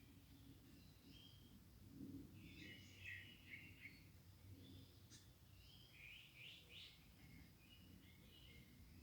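Faint, high bird chirps in short clusters, busiest about two to four seconds in and again around six to seven seconds, over a low steady hum.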